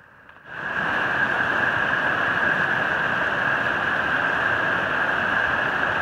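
Mountain stream rushing over boulders, a steady rush of water that fades in about half a second in.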